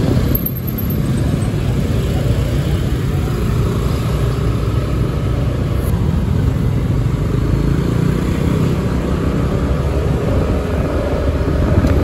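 Riding pillion on a motor scooter taxi through traffic: a steady low rumble of the scooter's engine, passing cars and scooters, and wind on the microphone.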